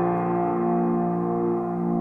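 Background music: a sustained electric piano chord ringing on.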